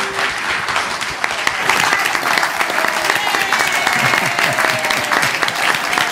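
A congregation applauding: many hands clapping together in a continuous stream.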